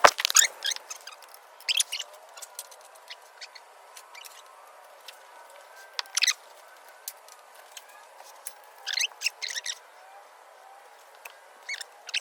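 A sharp knock right at the start, then scattered short high chirps and ticks over a faint hiss.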